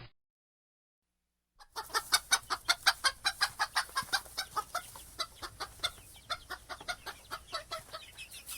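A bird calling in a rapid series of short repeated notes, about four a second. The calls begin after a second and a half of silence and slowly fade.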